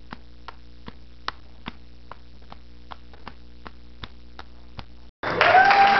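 Evenly spaced sharp clicks, about two and a half a second, over a low steady electrical hum. Near the end they cut off abruptly and loud voices with a crowd come in.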